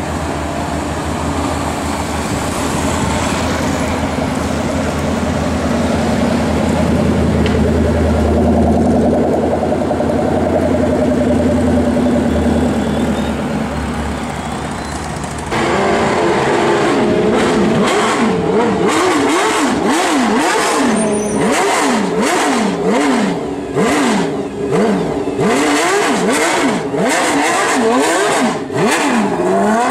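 Vehicle engines running in street traffic, a steady low drone that swells a little midway. About fifteen seconds in it cuts abruptly to a rapid series of rising-and-falling whines over sharp beats.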